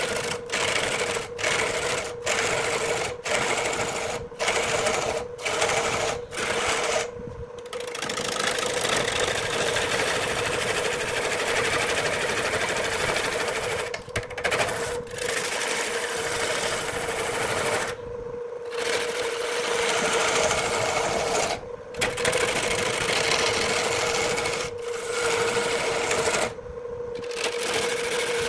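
Electric wood lathe running with a steady hum while a turning tool cuts into the spinning wood with a rough, scraping chatter. The cutting breaks off briefly about once a second early on, then a few more times, longer, later.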